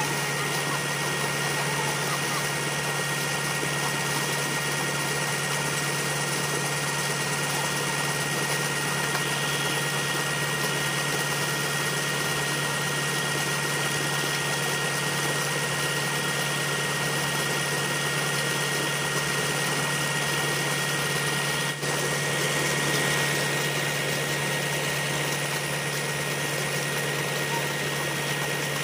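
Tractor engine running steadily, driving a tubewell turbine pump, with water gushing from the discharge pipe and splashing into a pool.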